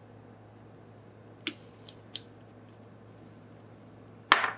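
A few light clicks and taps from handling a small glass bottle of cuticle oil and its brush-cap applicator, then one louder knock near the end as it is set down or capped.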